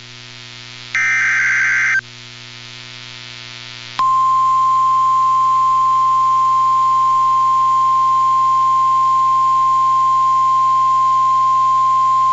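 NOAA Weather Radio alert: a one-second SAME digital header burst about a second in, then about two seconds later the 1050 Hz attention tone starts, one steady high beep held to the end. Together they mark the start of a new warning broadcast.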